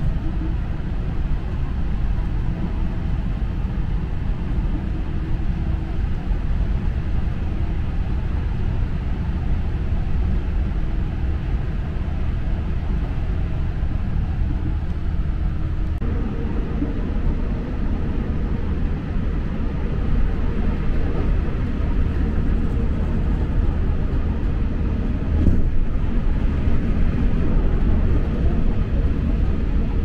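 Electric local train running, a steady low rumble of wheels on rail. About halfway through a steady hum joins it, and there is a single knock a few seconds before the end.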